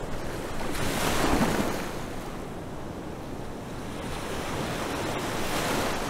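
Sea waves washing, a steady rush of surf that swells about a second in and again near the end.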